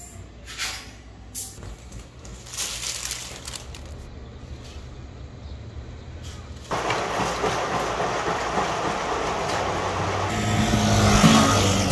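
Large front-loading coin-laundry washing machine running, a loud, even rushing noise that starts suddenly about two-thirds in, over a low hum. Before it there are a few light clicks, and guitar music comes in near the end.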